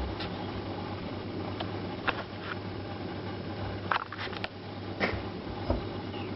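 Steady low room hum with a handful of short, light clicks and knocks scattered through it, from shar pei puppies moving about on a rug and hard floor.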